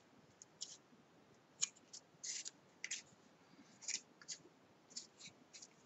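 Heavy 300 g cardstock being handled and fitted together by hand: a scattered series of short, crisp paper rustles and light taps as the pieces are pressed into the corners of the box.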